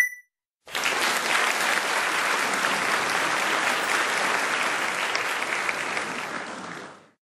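A short rising chime right at the start, then a recorded applause sound effect of many hands clapping that begins under a second in, holds steady, and fades out near the end.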